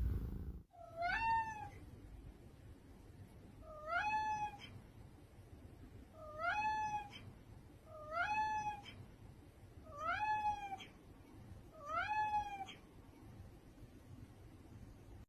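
A domestic cat meowing six times, about every two seconds, each meow rising in pitch and then held briefly.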